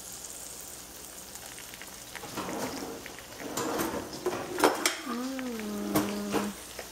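Hot food sizzling and crackling, faint at first and louder from about two seconds in, with several sharp clicks and taps. Near the end, a person hums a drawn-out note that slides down and then holds.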